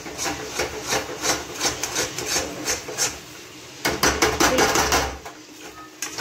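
A spatula scraping and stirring thick, moist dal paste around a steel kadhai in repeated strokes, about three a second, with a quicker run of strokes near the end. The dal is being stirred until its water cooks off and it turns crumbly.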